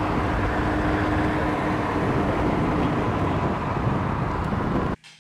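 Wind and road noise rushing over a camera microphone held out of a moving car's window, with a faint steady hum under it. It cuts off suddenly near the end.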